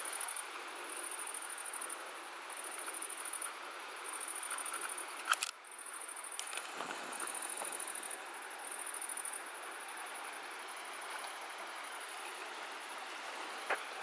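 Steady rush of water draining through a reservoir spillway. Insects trill in short high bursts about once a second over it, and two sharp clicks come about five seconds in and near the end.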